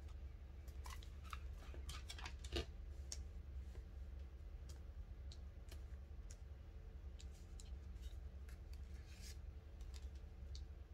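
Tarot cards being handled: soft clicks and snaps of cards being drawn, flipped and laid down, bunched in the first few seconds and sparser after, over a faint low hum.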